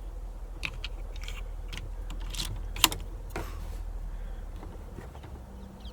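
Light clicks and metallic rattling of a knock-down target reset being worked, with one sharper click about three seconds in.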